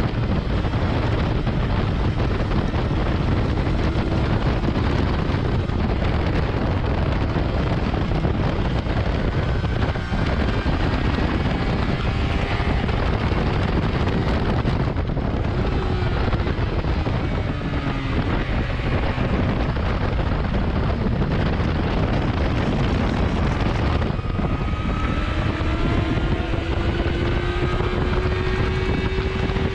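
Heavy wind rush on the microphone at track speed over a 2019 Yamaha R6's inline-four engine, whose pitch climbs under acceleration several times, most clearly over the last few seconds.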